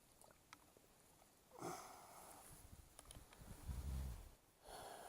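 Two audible exhales, huffs of breath close to the microphone, about a second and a half in and near the end, with a low rumble of handling or wind on the microphone between them.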